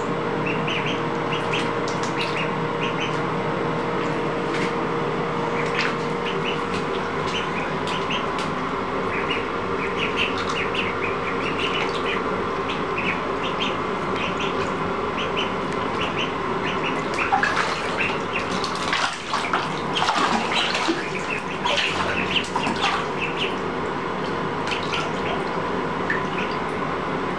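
Two ducklings peeping in short, high chirps as they paddle in bathtub water, over a steady rushing background noise. Between about 17 and 23 seconds in, louder bursts of splashing.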